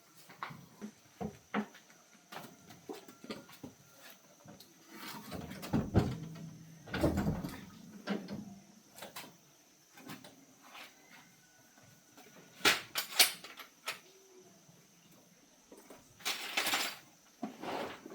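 Scattered knocks, clicks and rattles of objects being handled, with a busier spell of clattering in the middle and a few sharper, louder knocks later on; a faint steady high whine sits behind them.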